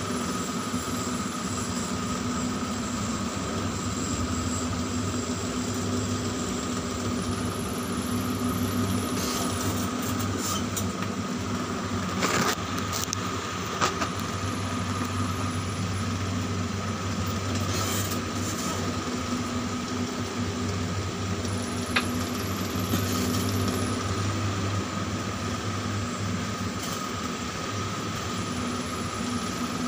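Tower crane's drive motors humming steadily from inside the operator's cab as the jib slews, with a steady high whine over a low hum and a few sharp clicks.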